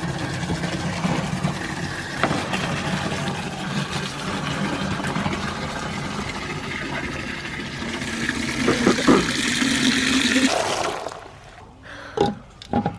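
Water running into a container, getting louder toward the end and shut off abruptly about eleven seconds in.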